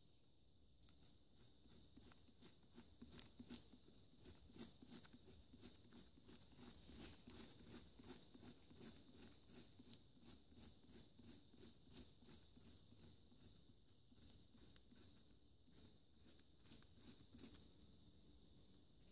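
Gerber Bear Grylls Ultimate survival knife shaving a piece of wood, a faint run of short scraping strokes about two to three a second.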